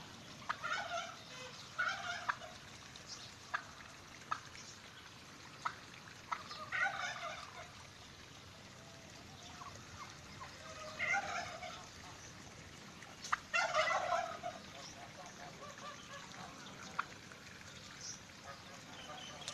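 Turkeys gobbling in short, scattered bursts, with a few sharp clicks between them.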